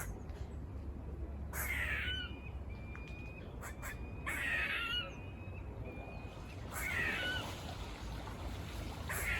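Squirrel giving harsh, buzzy barking calls, four of them at even intervals about two and a half seconds apart: an alarm call.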